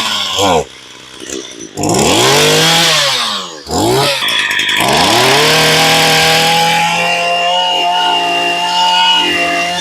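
Echo 22 cc two-stroke brush cutter engine being test-run with throttle blips: it revs up and drops back twice, then is held at high revs for about five seconds before easing off at the end. The quick rise and fall show its throttle response, which the seller calls very sensitive.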